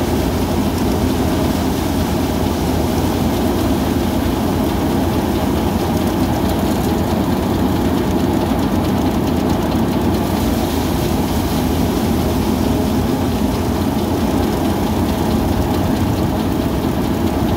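Paddy threshing machine running steadily under engine power, a continuous low mechanical drone with no change in speed.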